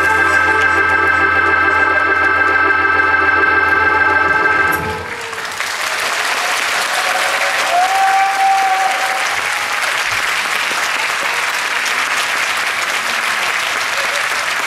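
Harmonica music holding one long final chord that stops about five seconds in, followed by an audience applauding.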